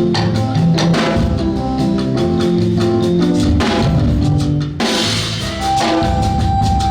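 Instrumental music with a drum kit and bass notes playing a steady beat, with a change in the arrangement about five seconds in.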